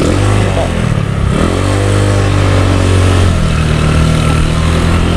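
Motor scooter engine revving up and easing off twice, then running steadily as the scooter rolls slowly over gravel.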